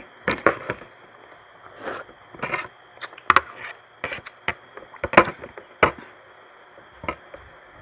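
Eating sounds of two people eating squid adobo with their hands: a run of sharp, irregular wet smacks and clicks from chewing and lip smacking, the loudest about three seconds in and twice more near the five-to-six-second mark.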